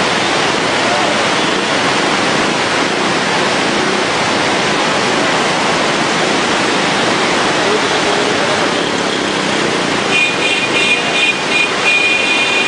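Floodwater rushing, a loud steady roar. About ten seconds in, a high-pitched tone comes in, first in short broken pieces and then held.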